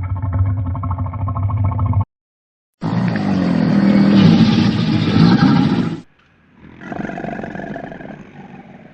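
Large wild animals growling and roaring in three short separate recordings with abrupt cuts between them: a low, rapidly pulsing growl, then a louder, longer roar, then a quieter call fading near the end.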